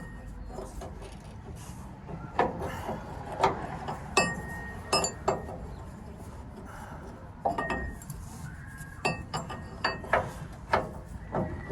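Hand tools clinking and knocking against steel steering parts, about a dozen irregular sharp metal clicks and clanks, some ringing briefly.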